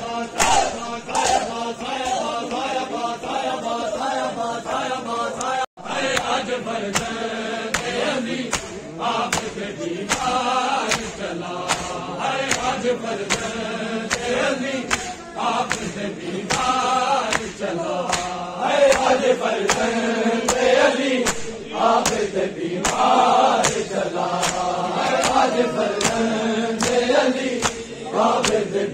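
Men's voices chanting a Shia noha (mourning lament) together, with the regular slap of open-handed chest-beating (matam) at about one and a half strikes a second. The sound cuts out for an instant about six seconds in.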